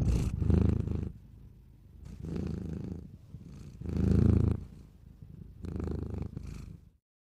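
Domestic orange tabby cat purring, the rumble swelling and fading four times with its breaths, alternately stronger and weaker. It cuts off just before the end.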